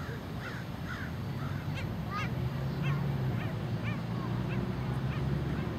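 Seabirds calling: a rapid series of short calls that rise and fall in pitch, several a second, over a low steady hum.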